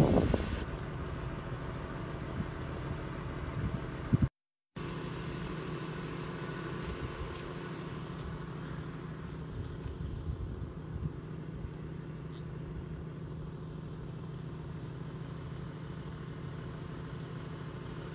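Car engine running steadily, heard from inside the vehicle as a low, even hum. The sound cuts out completely for a moment about four seconds in.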